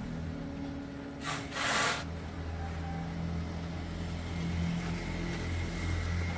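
Motorcycle engine idling steadily, with two short hissing bursts about a second and a half in.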